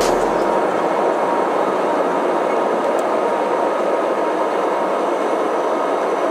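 Airliner cabin noise at takeoff: the underwing turbofan jet engines at high power give a steady rushing noise with a faint high steady whine.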